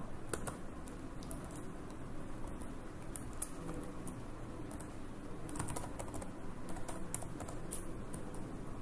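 Typing on a computer keyboard: scattered, irregular key clicks, a little denser about halfway through.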